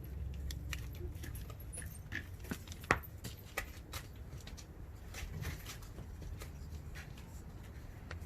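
Scattered light clicks and taps as a one-piece power knob handle is screwed onto a Daiwa LT spinning reel, the sharpest about three seconds in, over a low steady rumble.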